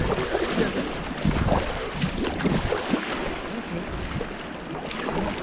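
Steady rush of river current.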